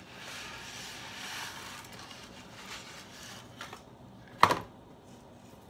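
Dry spaghetti rustling and sliding out of its cardboard box, with a few small clicks, then a single sharp knock about four and a half seconds in.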